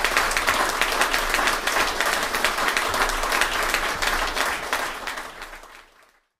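An audience applauding, a dense patter of many hands clapping that fades out near the end.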